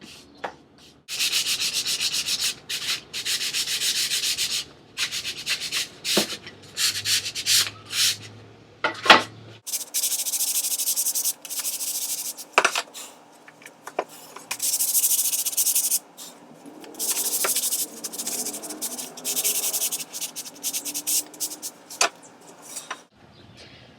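Sandpaper rubbing on plywood cut-out letters: hand sanding in repeated strokes of scratchy hiss with short pauses between them.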